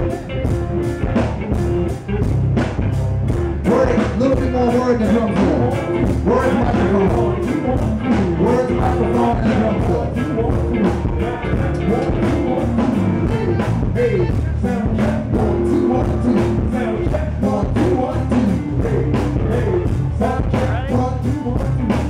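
Live rock band playing a full song with a steady drum beat, electric guitars, bass, saxophone and a lead singer.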